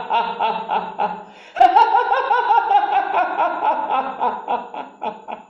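A person laughing in rapid, rhythmic pulses of about five a second. It dips briefly a little over a second in, starts again louder, and trails off toward the end.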